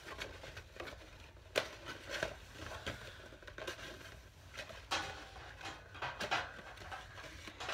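Scattered light taps, clicks and rustles of handling: a cardboard pet carrier box being worked open by hand and the wire panels of a small hamster cage being fitted onto its plastic base.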